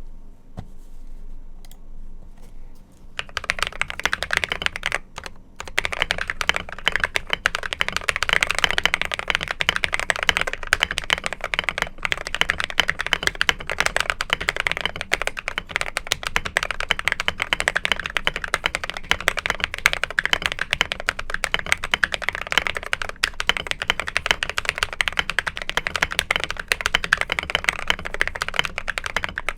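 Fast continuous typing on a custom TM680 mechanical keyboard with lubed AKKO Rose Red linear switches, a plastic case, foam and tape mods, and PBT XDA keycaps. The dense clicking starts about three seconds in.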